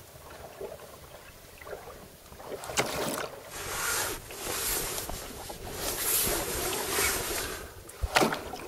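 Sea water washing against a small ocean rowing boat in the dark, coming in swells, with two sharp knocks on the hull, one about three seconds in and one near the end.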